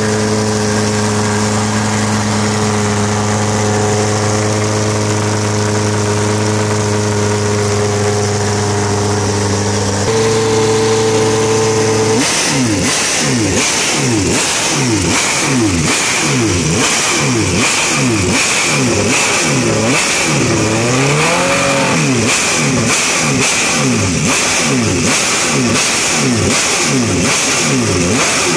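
Aurora Hellfire OZ26's 2575 cc liquid-cooled DOHC V8 running on a stationary motorcycle: a steady idle for about ten seconds, then from about twelve seconds in a long run of throttle blips, the pitch rising and falling about once a second.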